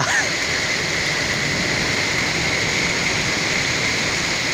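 Torrential rain pouring down, a dense, steady hiss.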